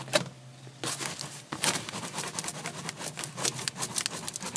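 Irregular rustling, scraping and light tapping of hands handling ductwork, with a faint steady hum that stops about a second in.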